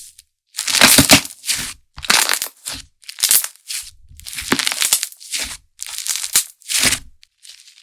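Handmade slime being squeezed and pressed by hand, a run of short crackling, popping squishes, roughly one to two a second.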